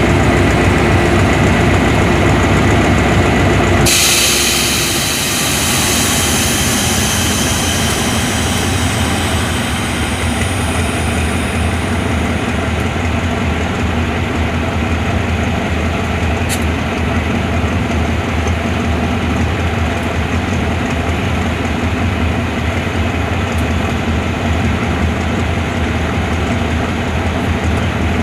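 Diesel locomotive engine running steadily beside the platform. About four seconds in, a sudden hiss of air starts, typical of train brakes being released, and fades away over the next several seconds.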